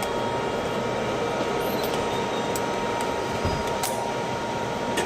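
Steady hum and whoosh of an indoor shooting range's ventilation, with a faint steady tone in it. A few faint clicks come in the second half; no shots are fired.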